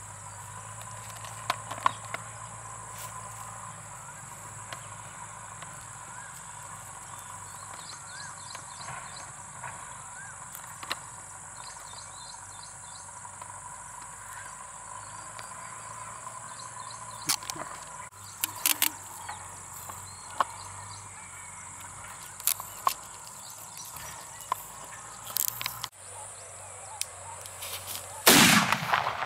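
Steady high chirring of crickets with a few scattered clicks from handling, then near the end a firecracker set on a clothes iron goes off: a loud burst of about a second as it sparks and explodes.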